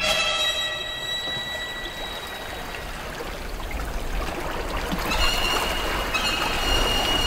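Shallow water running and splashing over rocks. About five seconds in, a high, held violin-like note comes in over it.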